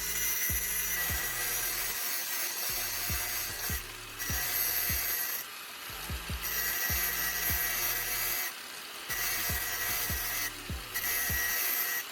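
Angle grinder with a fine grinding disc working a steel blade, a steady abrasive grinding with a high whine, broken several times by brief pauses as the disc comes off the metal.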